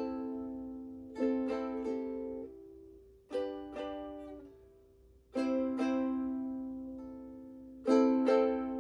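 Ukulele chords strummed slowly, one strum about every two seconds, each chord left to ring and fade before the next.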